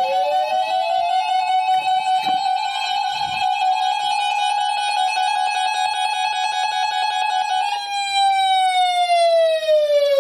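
NOAA Weather Radio 1050 Hz warning alarm tone, the tone broadcast ahead of a newly issued warning, here a high wind warning. It is a single loud tone with overtones that slides up in pitch at the start, holds steady for about eight seconds, then slides down near the end.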